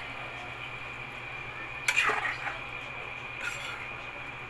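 A spatula stirring wet eels and squid in a coated cooking pot: a loud clatter of scraping and knocking against the pot about two seconds in, and a smaller one about three and a half seconds in, over a steady background hum.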